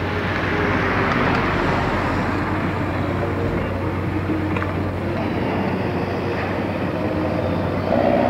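A car driving past along a road, over steady outdoor rumble and a constant low hum, swelling about a second in as it passes close. There is a brief louder noise near the end.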